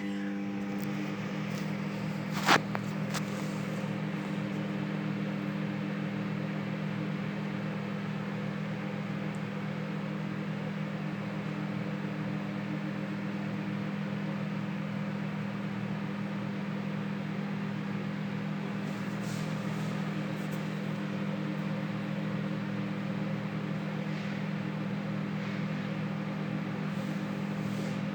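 Sharp microwave oven running on a heating cycle after a no-start repair, with a steady mains hum from the high-voltage transformer and the cooling fan's whir. There is one sharp click about two and a half seconds in.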